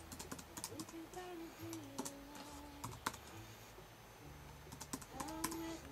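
Typing a password on a computer keyboard: irregular, quick, faint key clicks.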